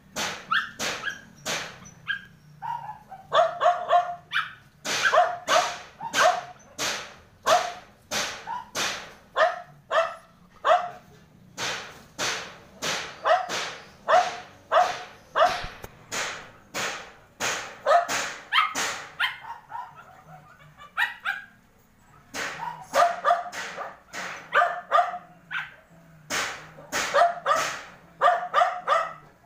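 A dog barking over and over, about two sharp barks a second, with a pause of a couple of seconds about two-thirds of the way through.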